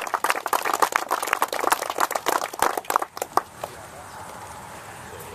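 Applause from a small crowd, dying away about three and a half seconds in, followed by the steady rush of passing road traffic that slowly grows louder.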